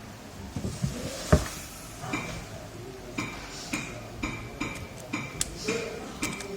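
A sharp knock about a second in, then light metallic clicks about twice a second, from small metal parts or tools being handled.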